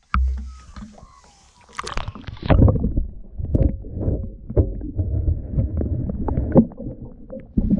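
Muffled underwater sound picked up by a submerged action camera: gurgling, rushing water with many dull knocks and bumps against the housing, densest from about two seconds in.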